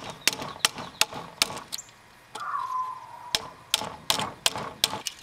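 Claw hammer working nails out of a metal carpet edge strip: a run of sharp, irregular metallic taps and clicks, about three or four a second, with a short squeal that falls in pitch about two and a half seconds in.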